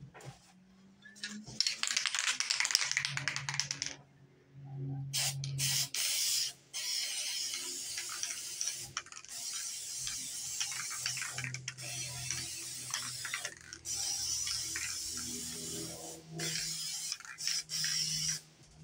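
Aerosol spray-paint can shaken, its mixing ball rattling hard for a couple of seconds. Then black spray paint hissing from the nozzle in a series of passes with short breaks between them.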